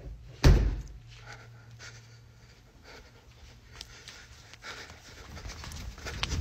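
A single loud thump about half a second in, over a low steady hum; from about four and a half seconds on, rustling and clicks of a handheld phone being moved close to its microphone.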